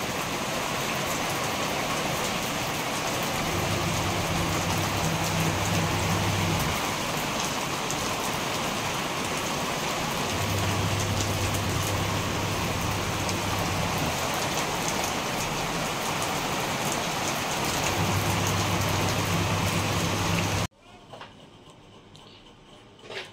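Heavy rain pouring down and splashing on concrete, a steady loud hiss, with a low hum rising and fading three times underneath. The rain cuts off abruptly near the end.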